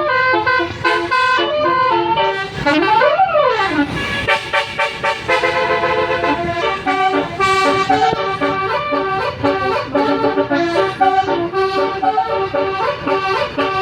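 Bus's telolet basuri horn playing a tune: several horn tones sounding together and stepping from note to note, with a rising-then-falling glide about three seconds in.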